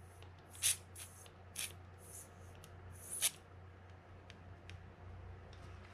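Aerosol can of oil spraying through its thin straw in several short hissing bursts. The oil is going onto the seized anti-reverse lever shaft of a Shimano Baitrunner 12000D spinning reel to free it up.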